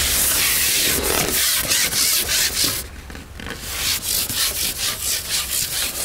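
Long carbon fishing pole being shipped back, sliding and scraping through the angler's hands and over its support. It makes a long rubbing scrape at the start, then a run of short rubbing strokes in the last few seconds as he pulls it back section by section while landing a fish.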